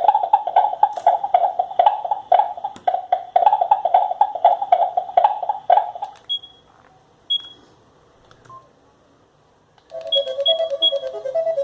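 Alcatel OT-757 mobile phone playing its built-in ringtones through its small loudspeaker. A fast melody of short electronic notes runs for about six seconds and stops. Two short high beeps and a pause follow, then a new ringtone starts near the end as a rapid trill between two notes.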